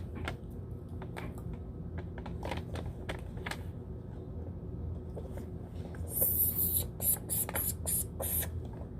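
Plastic toy packaging crinkling and crackling as it is handled and worked open, with scattered small clicks, a louder crinkling rush about six seconds in and a quick run of sharp crackles after it.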